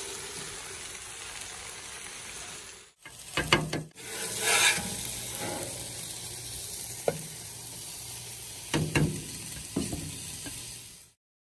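Food sizzling on a hot steel flat-top griddle, with a metal spatula scraping and tapping against the griddle top several times as food is lifted off. The sound cuts off abruptly near the end.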